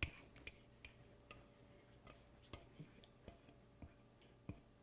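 Faint, irregular clicks and taps of a spatula against a baking dish as zucchini-potato batter is spooned in and spread. The loudest tap comes right at the start.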